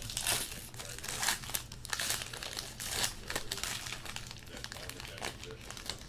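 A trading card pack wrapper being torn open and crinkled by hand: an irregular run of crackles and rustles, loudest near the start, about a second in and about three seconds in.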